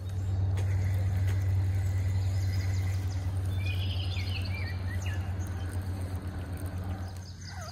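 A steady low hum that fades near the end, with a few short bird chirps about four seconds in.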